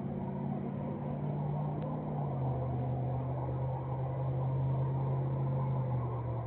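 Vehicle engine running with a steady drone that shifts slightly in pitch about two seconds in and is loudest near the end. The uploader takes the engine to be misfiring.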